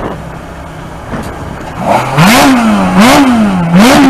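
Ferrari 430 Scuderia's 4.3-litre naturally aspirated V8 idling, then revved three times from about two seconds in, each blip rising sharply and sinking back, about a second apart.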